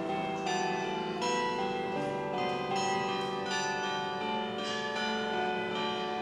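Church bells pealing: a new bell strikes about every half second, and each note rings on under the next.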